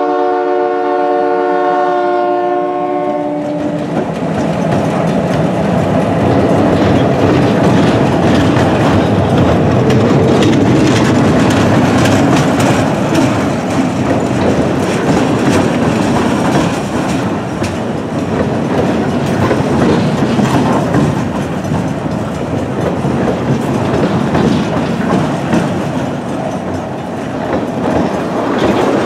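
A diesel locomotive's horn sounds a steady multi-note chord that stops about three and a half seconds in. Then a freight train of loaded log flatcars rolls past, its wheels clattering and rumbling over the rails.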